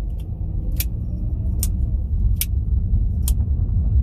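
Car running with a steady low rumble heard from inside the cabin, and a sharp tick four times at an even pace, about once every 0.8 s.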